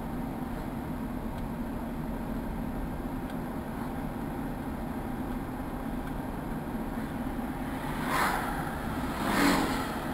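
Steady low hum of an engine or traffic, with two vehicles passing by with a whoosh about eight and nine and a half seconds in, the second one louder.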